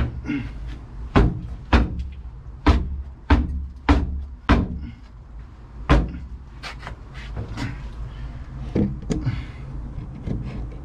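Hammer blows knocking a fitted part into place: about eight heavy, irregular knocks in the first six seconds, then lighter taps.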